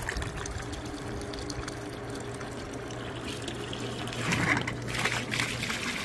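Smartbot 1/2 HP submersible utility pump running underwater in a hot tub, a steady low hum under churning, bubbling water. It has switched itself on automatically on sensing the water. Water splashes from the garden hose it is pumping through.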